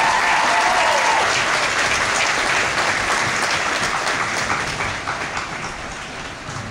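Crowd applauding, with a few calls rising and falling in pitch over it at the start. The clapping dies away over the last couple of seconds.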